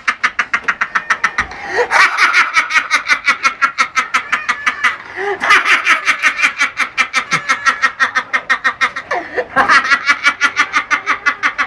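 A man laughing hard, a high-pitched run of rapid "ha-ha-ha" pulses about seven a second. He takes a gasping breath about 2 s in, again near the middle and once more near the end, then goes straight back into it.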